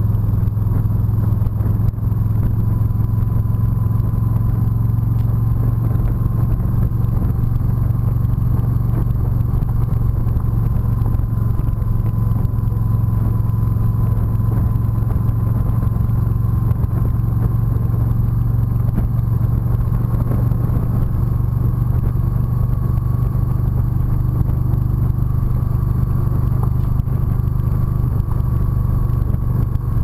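Motorcycle engine running steadily as the bike cruises along the road, with wind and road noise. The engine note stays even, with no change in speed.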